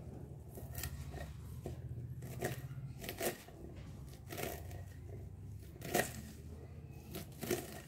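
Kitchen knife slicing through a bunch of fresh safflower (kardai) leaves on a wooden chopping board: irregular crisp cuts, with the blade knocking on the board about a dozen times, over a low steady hum.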